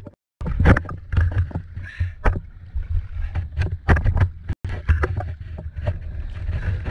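Kayak paddle strokes splashing and water slapping against the plastic hull of a sit-on-top kayak in choppy sea, irregular splashes and knocks over a steady low rumble.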